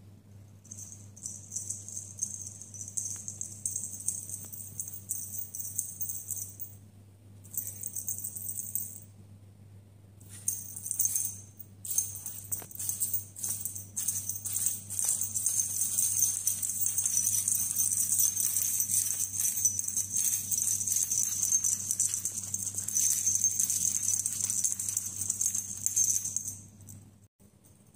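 A high, hissy rattling like a shaken rattle, on and off for the first ten seconds, then continuous until it stops suddenly about a second before the end, over a steady low hum.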